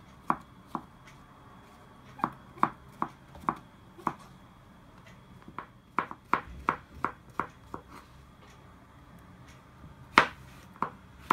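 Kitchen knife slicing champignon mushrooms on a plastic cutting board: sharp taps of the blade reaching the board, in runs of several quick cuts with pauses between, the loudest tap near the end.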